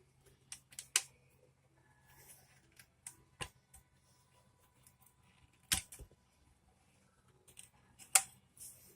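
Plastic Lego bricks being handled, giving a series of sharp, irregular clicks and snaps. The loudest come about a second in, near six seconds and a little after eight.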